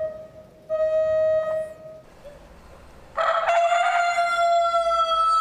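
Countdown beeps, the last one long, then about three seconds in a recorded Brahma rooster begins one long crow.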